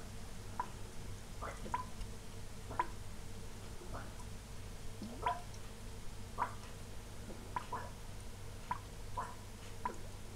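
Airlocks on two glass demijohns of fermenting sloe wine bubbling: short liquid blips at irregular intervals, about one a second, as carbon dioxide from the active fermentation pushes through the water in the airlocks.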